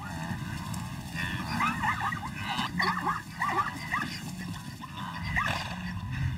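A quick run of short yipping animal calls, each a brief glide up or down in pitch, several a second, over a steady low background rumble.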